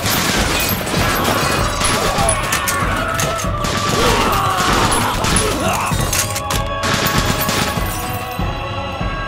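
Anime battle soundtrack: sustained rapid rifle fire from a Howa Type 64 battle rifle with bullets striking metal shields, over dramatic music. Voices cry out around the middle.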